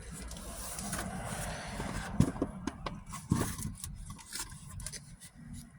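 Cardboard pizza box being handled: scraping and rustling, with several light knocks about two to three and a half seconds in.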